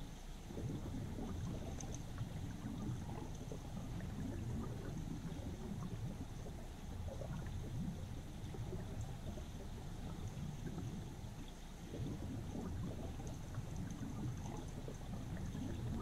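River current heard underwater: a low, unevenly churning rumble and gurgle of water moving over a stony bed, with a faint steady high tone above it.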